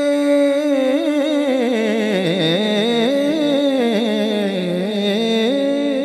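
A man's solo voice singing a naat into a microphone. He holds a long steady note, then from about a second in wavers up and down through ornamented melodic runs, and settles on a steady held note again near the end.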